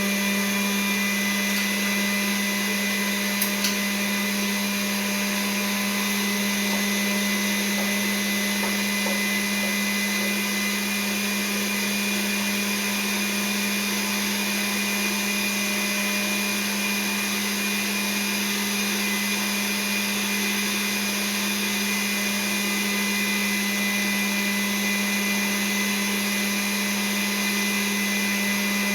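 Electric grinder running steadily under load, grinding the venison and sausage mixture, with a steady motor hum; a faint click about three and a half seconds in.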